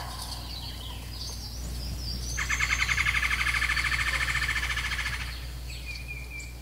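Bird song: a few faint high chirps. Then, about two and a half seconds in, a loud, rapid trill that lasts nearly three seconds. A short high whistle follows near the end.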